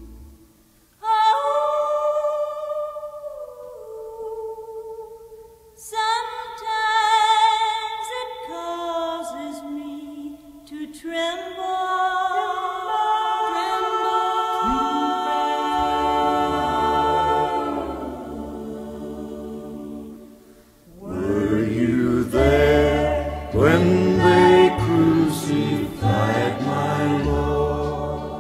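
Choir singing slow, sustained chords. A low part joins about halfway through, and the singing grows fuller near the end.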